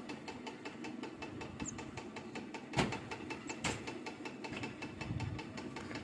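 An engine idling steadily with an even, rapid beat, and two sharp clicks a little under three seconds and near four seconds in.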